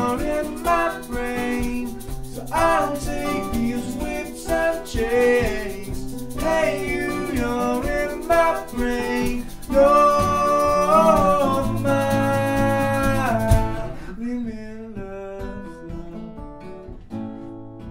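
Two men singing together over a guitar, in a live band performance. The voices stop about thirteen and a half seconds in, and the guitar plays on alone, more quietly.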